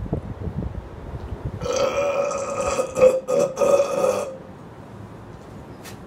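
A man's long burp, about two and a half seconds, starting a second and a half in and breaking up briefly a couple of times near its end, brought on by drinking a bottle of tap water.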